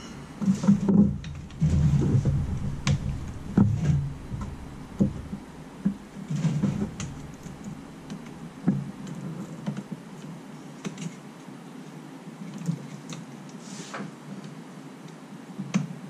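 Scattered clicks, knocks and rustles of hands working blind among plastic wiring connectors and hoses in a Jeep engine bay, with a few dull thumps. The sounds are busiest in the first several seconds and thin out to occasional light clicks after that.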